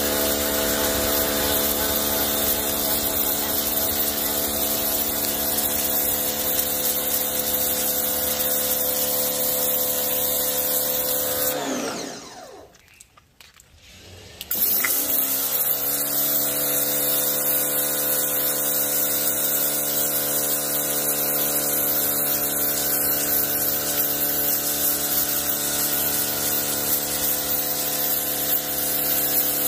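Ryobi electric pressure washer running, its motor-driven pump humming steadily under the hiss of the water jet on concrete. About twelve seconds in it winds down and stops for a couple of seconds, then starts up again and runs until it winds down again near the end.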